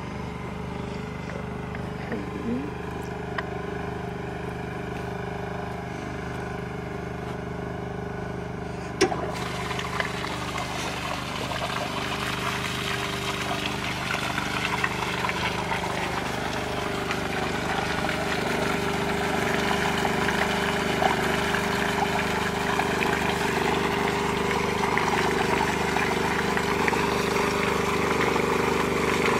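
An engine runs steadily throughout. About nine seconds in there is a sharp clack, and then meltwater rushes out of the vacuum tank through its open slide valve and splashes onto the ground, growing louder.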